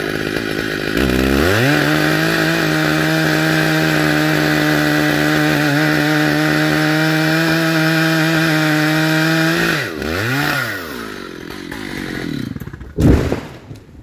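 Stihl MS 880 two-stroke chainsaw revving up about a second in and running at full throttle, steady in pitch, through the felling cut in a large oak trunk. Near ten seconds the throttle drops and is blipped once; then the oak falls and hits the ground with a loud crash about a second before the end.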